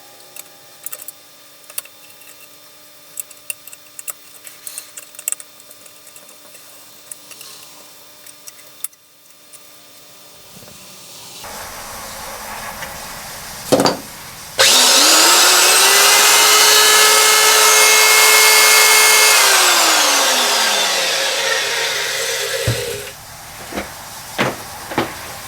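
Craftsman 1 horsepower router motor switched on after cleaning and repair: it spins up with a rising whine, runs steadily for about five seconds, then is switched off and winds down with a falling pitch. It is running again, so the repair worked. Light clicks and handling come before it and a few clicks after.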